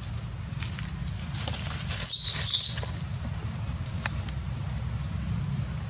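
A macaque's short, high-pitched scream about two seconds in, lasting under a second, over a steady low background rumble.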